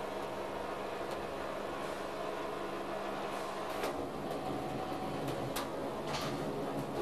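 Aircraft assembly hall ambience: a steady hum of machinery, with a few short knocks in the second half.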